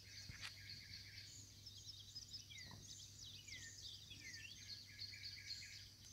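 Faint songbird song outdoors: a run of quick chirps and short down-slurred whistled notes, over a steady low hum.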